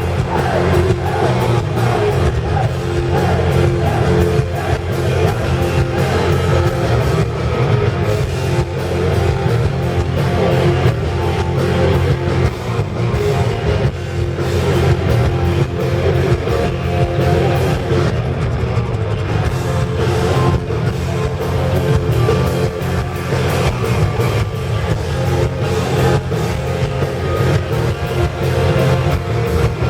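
Live heavy metal band playing loud and steady: distorted electric guitars, bass and drum kit, with some singing, as heard from the audience.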